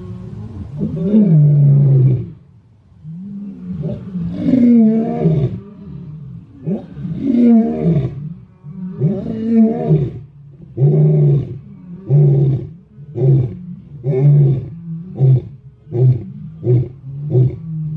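Male lion roaring: a roar sequence of long, deep moaning calls that give way to shorter grunts, coming faster and faster, about two a second near the end.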